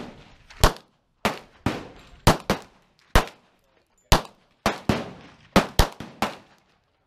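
Handgun gunfire: about a dozen sharp shots at uneven intervals, some louder than others, each trailing off in a short echo.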